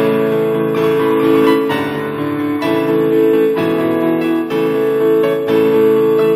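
Background music: a piano or electric keyboard playing sustained chords that change about once a second.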